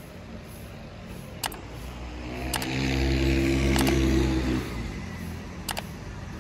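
A motor vehicle's engine passes out of sight, growing louder to a peak about three to four seconds in and then fading. Four sharp clicks are spaced through it.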